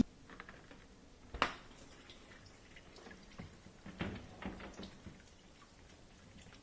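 A few scattered light clicks and knocks, the sharpest about a second and a half in and a small cluster around four seconds in.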